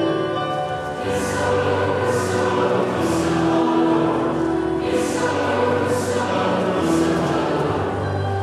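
Mixed choir of young men and women singing together in held chords that move from note to note, with short hissing sounds about once a second, in a large church.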